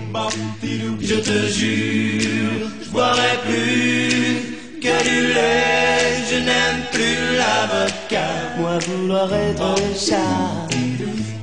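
An a cappella vocal group singing a pop song in close harmony, voices only, with a low sung bass line under the lead and backing voices.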